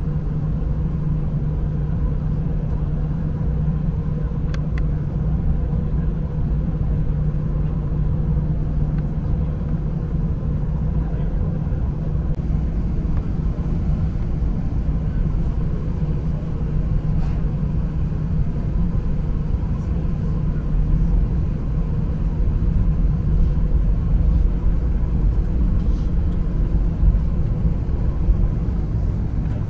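Cabin noise of an Airbus A319 taxiing: a steady low rumble with a constant hum from the engines at taxi power, growing a little louder in the last third, with a few faint clicks.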